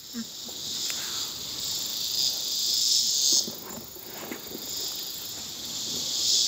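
Insect chorus, a high hissing buzz that swells, stops abruptly about three and a half seconds in, and builds again near the end.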